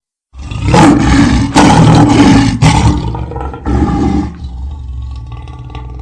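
A lion roaring: one long loud roar, then a shorter second roar about four seconds in, trailing off into a quieter rumble.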